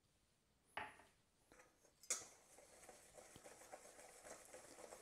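Wire whisk stirring dry flour in a stainless steel mixing bowl: faint, quick scratching and ticking of the wires against the metal that starts about two seconds in, after a light clink of the bowl shortly before.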